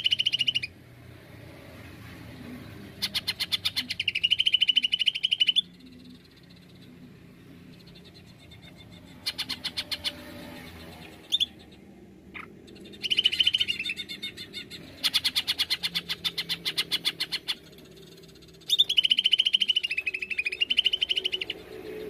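Cucak ijo (green leafbird) song in repeated bursts of fast rattling notes, most carrying a high held whistle, each burst lasting about one to three seconds with short pauses between, in the rapid 'nembak' style.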